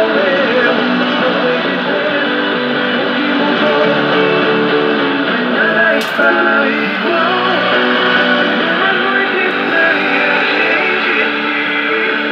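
Guitar music from a shortwave AM broadcast on 7455 kHz, playing through the built-in speaker of a Kenwood R-2000 communications receiver. The sound is cut off above about 5 kHz, and a single sharp click comes about halfway through.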